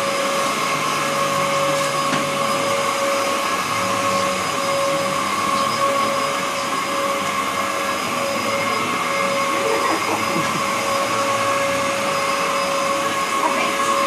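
Upright vacuum cleaner running on carpet: a steady motor whine over a rush of air.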